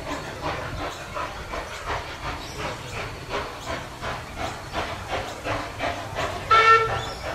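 Steam locomotive C17 974 working steam, its exhaust beating steadily at about three chuffs a second. Near the end comes one short, loud toot.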